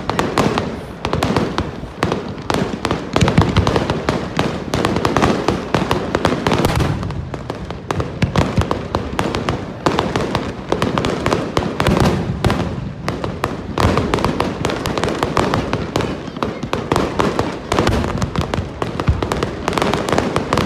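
Fireworks display in a rapid barrage: many sharp bangs and crackles overlapping in a continuous stream, with no pauses.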